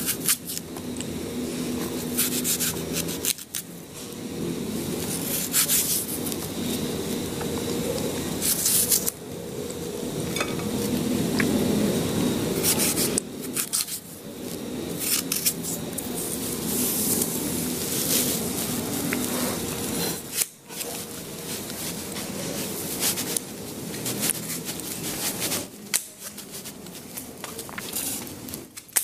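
Kitchen handling sounds: a small paring knife scraping and cutting as a vegetable is peeled by hand, with scattered sharp clicks of knife and utensils against the counter.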